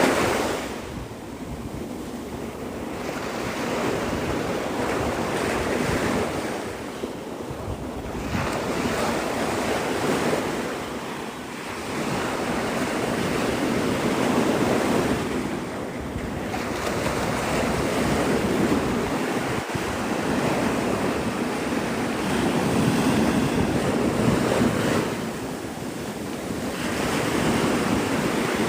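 Surf breaking on a sandy beach, the wash rising and falling every few seconds, with wind buffeting the microphone.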